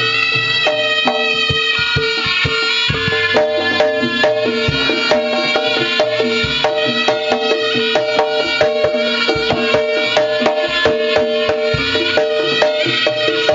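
Live Javanese jaranan gamelan music: hand drums and struck metal percussion play a fast, dense rhythm over a steady held tone.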